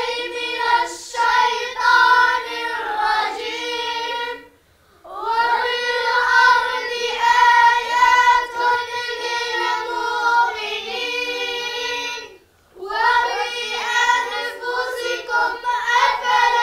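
A group of young boys chanting a recitation together in unison, in a sing-song melody, breaking off briefly twice, about four and a half and twelve and a half seconds in.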